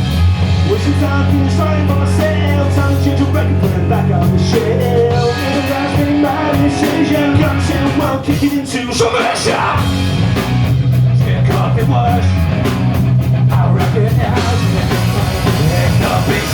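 Punk rock band playing live, electric guitar to the fore, loud and without a break.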